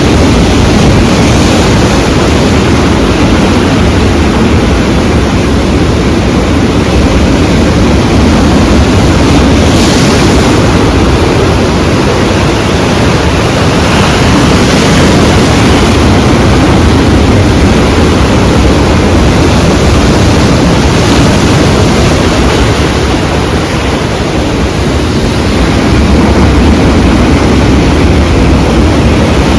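Sea waves breaking and washing in a steady, loud rush of surf, heavy in the low end.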